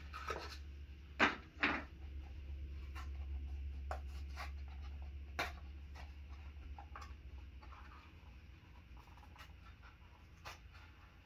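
A steady low hum that fades in the second half, with a few scattered clicks and knocks of small objects being handled.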